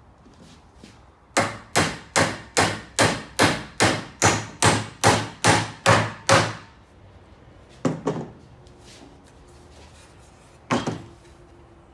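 Hammer driving nails into a wooden brace on a frame of old deck boards: a run of thirteen even blows, about two and a half a second. Later there is a lone double knock, and near the end a single thump as the wooden frame is put down on the bench.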